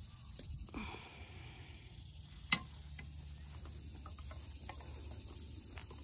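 A single sharp click about two and a half seconds in, over a steady low rumble of wind, with a brief rustle near the start and scattered light ticks later.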